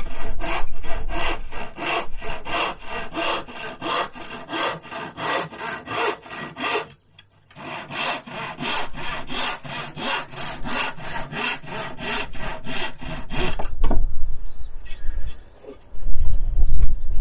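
Handsaw cutting through a wooden board with steady back-and-forth strokes, about two to three a second, pausing briefly about seven seconds in and stopping a little before the end as the cut finishes. Low rumbling and a few heavy low thumps follow near the end.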